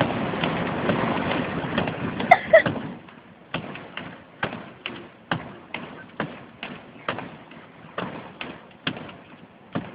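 Steady rushing noise that fades away about three seconds in, followed by regular sharp clicks, a little over two a second, inside a car.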